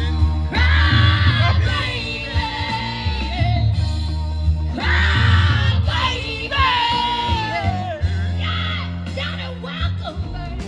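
Amplified live rock band: a woman sings over electric guitar and a heavy bass line.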